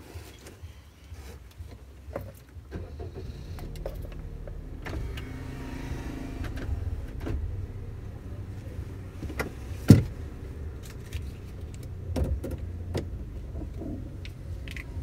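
Car cabin noise: a low engine and road rumble that grows about three seconds in as the car gets going, with a seatbelt being pulled across and fastened near the start, scattered light clicks, and one sharp knock about ten seconds in.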